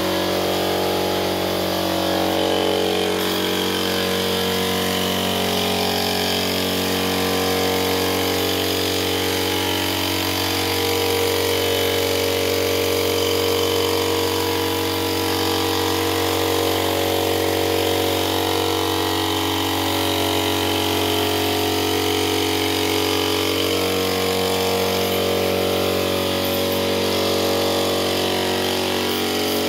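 Air compressor running steadily, feeding a spray gun: an even motor hum with a constant airy hiss over it.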